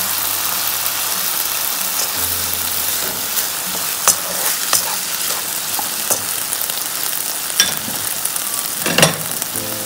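Chicken and vegetables sizzling in a nonstick frying pan as they are stirred with a wooden spoon: a steady frying hiss with a few sharp knocks of the spoon against the pan, the loudest near the end.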